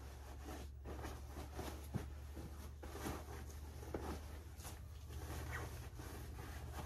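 Fabric rustling and scuffing as pillows are worked into microfiber polyester pillow shams, with irregular short swishes and light taps over a steady low hum.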